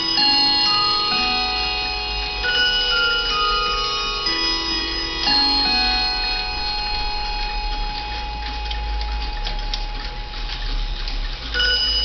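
Howard Miller 612-429 Samuel Watson key-wound mantel clock playing its chime tune, one struck note after another, each ringing on. The chime dies away after about seven seconds into ticking, and a new run of chime notes starts near the end.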